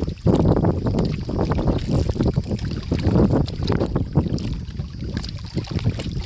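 Water splashing and sloshing, with wind buffeting the microphone.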